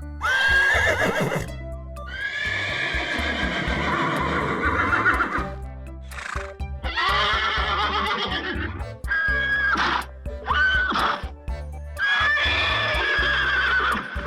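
An animal calling again and again, about six loud pitched calls of one to three seconds each, over background music.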